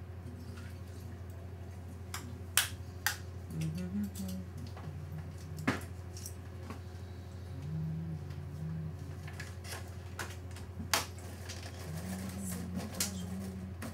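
Sharp clicks, five or six in all, as metal hair clips and make-up items are handled, over a steady low hum. A low voice murmurs a few times without clear words.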